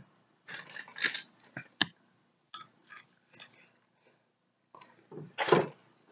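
A person chewing a snack: soft, irregular mouth clicks and crunches with a few small handling sounds, then a louder burst of noise near the end.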